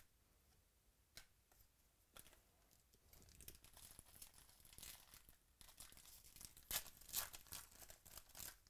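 Foil trading-card pack being torn open and crinkled by hand: a few light clicks at first, then faint, dense crackling from about three seconds in that is loudest near the end.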